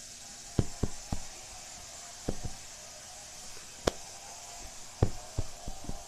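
Scattered, irregular knocks and clicks, about a dozen, the loudest near the start and about four seconds in, over a faint steady hiss.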